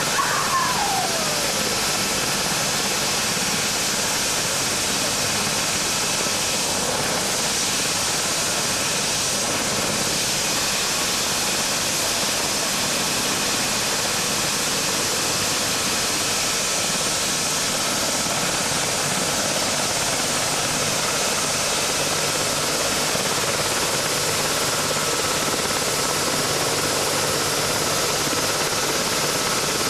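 Twin-turbine rescue helicopter idling on the ground with its rotor turning: a steady turbine whine and rush with a faint steady tone. A short falling whistle sounds right at the start.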